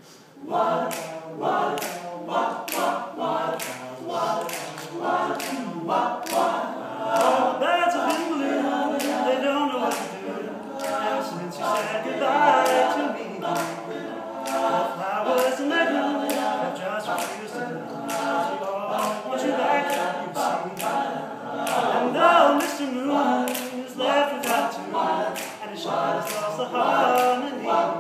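All-male a cappella group singing a song in close harmony, starting at the beginning, with a sharp percussive beat about twice a second.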